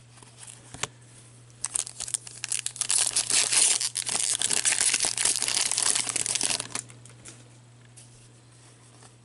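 Foil hockey-card pack wrapper being torn open and crinkled by hand, a dense crackling that starts about two seconds in and stops suddenly near seven seconds. A steady low hum runs underneath.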